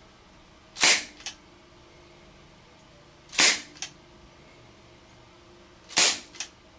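Propane-powered HFC HG132 airsoft revolver fired three times in double action, about two and a half seconds apart. Each sharp pop is followed by a fainter click.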